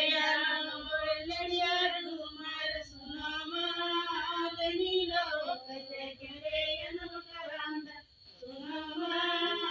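A group of women singing a Karam folk song together, in long held melodic lines without instruments, with a brief pause about eight seconds in.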